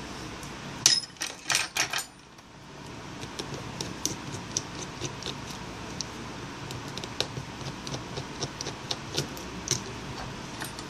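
Clicks and clatter of small hand tools and fingers against an opened smartphone's plastic frame, with a quick run of louder clacks about a second in, then scattered light ticks.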